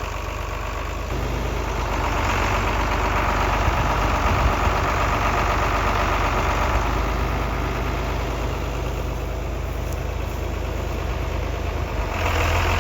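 Tractor engine running steadily, picking up a little about a second in and easing off slightly later on.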